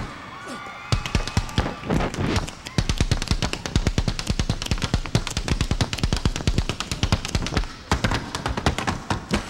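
Fast percussive footwork from tap shoes and Irish dance hard shoes striking a stage floor, many strikes a second in quick rhythms. There is a short lull about half a second in and a brief dip near the end.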